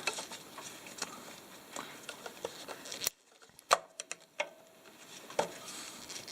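Light scraping and scattered small metallic clicks of a screwdriver tightening down the igniter on an oil burner, with a few sharper clicks in the second half.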